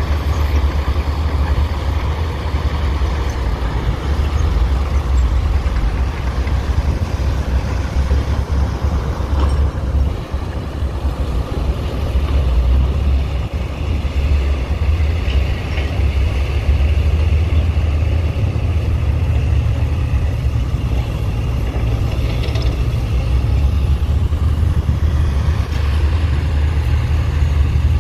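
Heavy diesel machinery running steadily, a continuous low rumble with a brief dip about ten seconds in.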